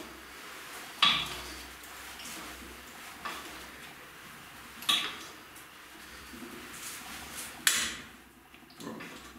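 Hand-turned tap cutting a set-screw thread into a small steel shaft sleeve held in a vise. About five sharp clicks and clinks, spaced irregularly a second or more apart, sound as the tap and its wrench are turned, with quieter scraping between them.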